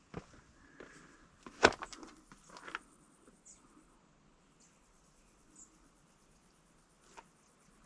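A few footsteps on a rocky trail, the loudest about one and a half seconds in, then a quiet stretch with a faint, steady high-pitched tone and a couple of light clicks near the end.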